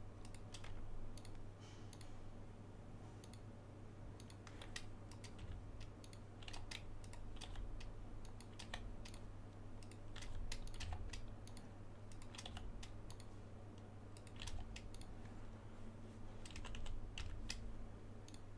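Faint computer keyboard and mouse clicks at irregular intervals as shortcut keys are pressed while editing, over a steady low electrical hum.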